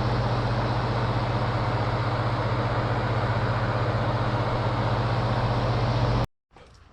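Steady machine hum with a strong low drone over a rushing noise, running evenly and then cutting off abruptly near the end.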